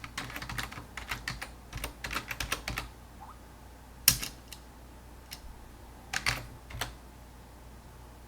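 Typing on a computer keyboard: quick runs of keystrokes for about three seconds, one sharp single key press about four seconds in, then a few more keystrokes a couple of seconds later.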